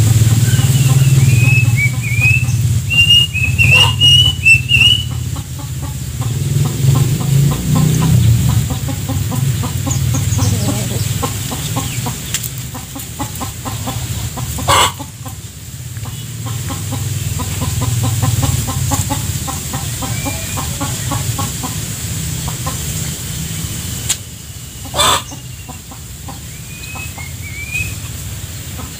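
A flock of chickens clucking softly and continuously, with higher chirping calls in the first few seconds and again near the end, and a few sharp clicks.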